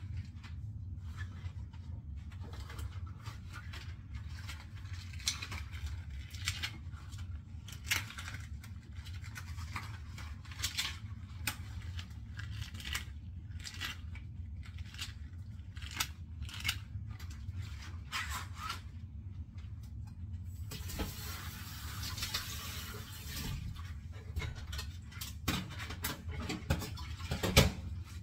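Dishes being scrubbed by hand in rubber gloves: irregular scratchy rubbing and scraping strokes, with a rush of running water for a few seconds about three-quarters of the way through and a sharp clatter of dishware near the end.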